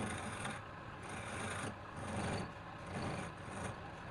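Wood lathe running with a low motor hum while a tool or abrasive rubs against the spinning wood, a rasping noise that swells and fades in strokes about once a second.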